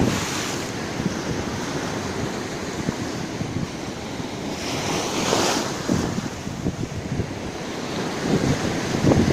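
Mediterranean Sea waves washing ashore, one wave surging and breaking loudly about halfway through, with wind buffeting the microphone.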